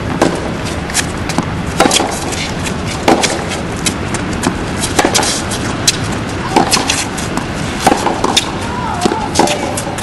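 Tennis rally on a hard court: repeated sharp pops of racket strings striking the ball and the ball bouncing, coming every second or so over a steady hiss.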